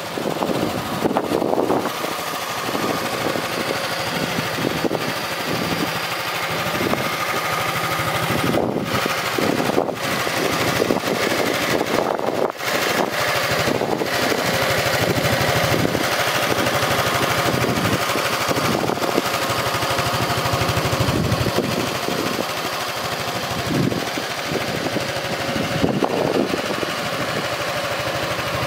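Honda NSS300 Forza scooter's single-cylinder engine idling steadily.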